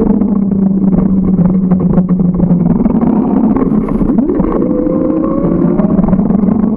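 Steady loud road noise from a moving bicycle, with a constant low hum. About four seconds in, a passing car's engine rises in pitch as it accelerates.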